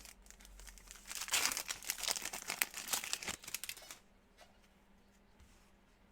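A trading-card pack wrapper being torn open and crinkled, a dense crackling that starts about a second in and lasts about three seconds.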